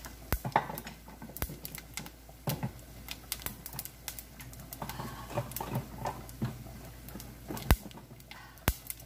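Caraway seeds and paprika toasting in a hot, dry stainless steel skillet: sharp crackles and pops at irregular intervals, one louder pop near the end.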